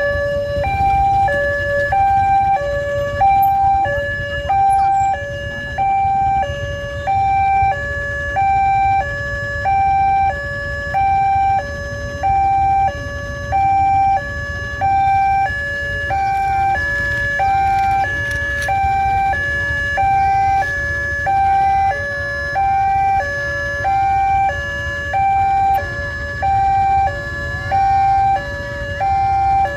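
Railway level-crossing warning alarm sounding its two alternating tones, high then low, about one pair every 1.2 seconds and steady throughout, with a low rumble underneath. It signals that the barrier is down and a train is approaching.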